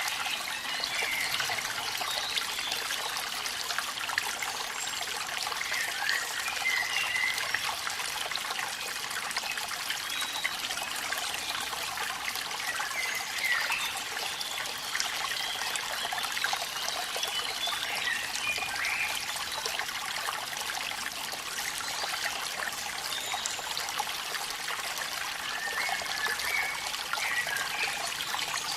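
Steady rush of falling water from a waterfall in rain, with a few short high chirps now and then.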